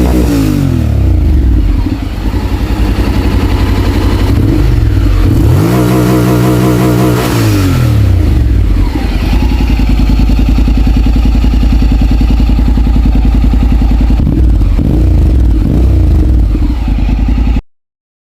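Honda X-ADV 750's parallel-twin engine through a Yoshimura aftermarket exhaust, dropping from a rev back to idle, then revved up and held for about two seconds before falling back. It then idles steadily, with a short blip of throttle near the end, and the sound stops abruptly.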